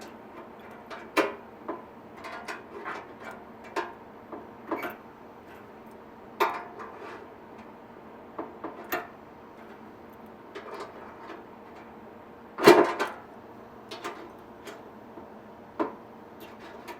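Scattered metal clicks and knocks as a clamp and a steel fitting are handled and set against a steel oil pan, with one louder clunk about three-quarters of the way through.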